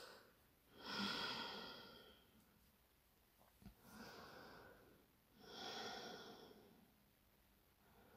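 Faint, slow breathing of a woman holding a yoga forward stretch: three soft breaths, each about a second long, a couple of seconds apart.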